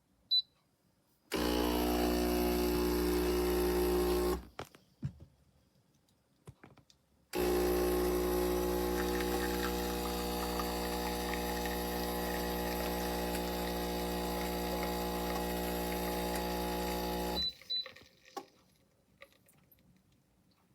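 Espresso machine: a short touchscreen beep, then its pump buzzes steadily for about three seconds, stops, and buzzes again for about ten seconds. A quick double beep sounds right after the pump stops.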